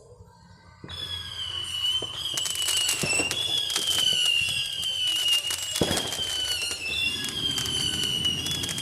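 A whistling, crackling firework going off. About a second in, a steady high whistle starts and wavers up and down, over dense crackling, with one louder pop about six seconds in.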